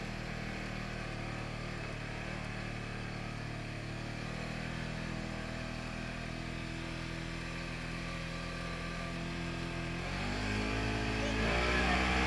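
Polaris RZR 900 side-by-side's parallel-twin engine running steadily under way on a dirt trail, then revving higher and louder about ten seconds in.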